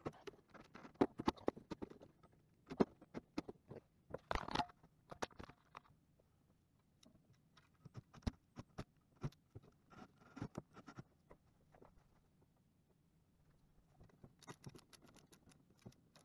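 Hand screwdriver driving self-tapping screws through end cap plates into aluminium extrusion, heard as faint, irregular clicks, scrapes and small taps of the driver, screws and plates being handled.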